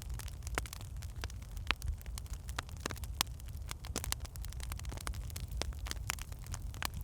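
Wood fire crackling in a fireplace: frequent irregular sharp pops and snaps from burning logs over a steady low rumble of the flames.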